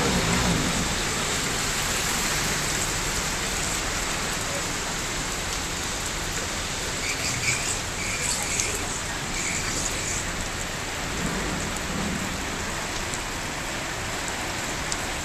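Steady rain falling on a flooded street, a constant hiss of drops on the water.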